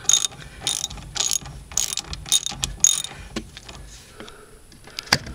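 Hand ratchet wrench clicking in quick back-and-forth strokes, about two a second, as a brake bolt is tightened. The strokes ease off after about three seconds, with one sharp click shortly before the end.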